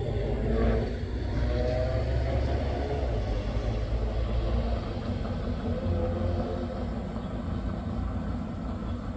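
Diesel locomotive of a passenger train pulling away in the distance: a steady low rumble with a faint droning engine tone that wavers slightly.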